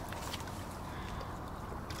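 A hooked wels catfish splashing at the water's surface close to the bank, with several short sharp splashes over a steady sloshing of water.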